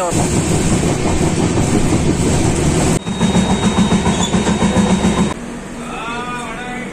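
Train running on the track, its wheels clattering in a quick, uneven rhythm. The sound cuts off abruptly twice. The last second and a half is quieter and carries a pitched sound that bends, then holds steady.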